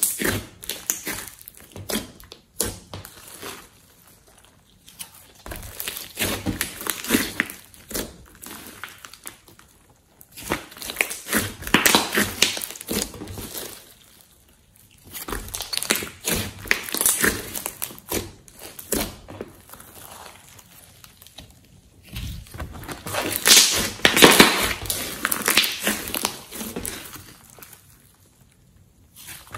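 Hands squeezing, stretching and folding glossy slime, giving dense runs of small crackles and pops in bursts of a second or two, with short quieter gaps between.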